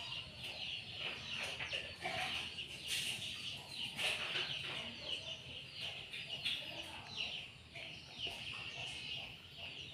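Birds chirping: a dense, continuous run of many short, high chirps, each falling in pitch.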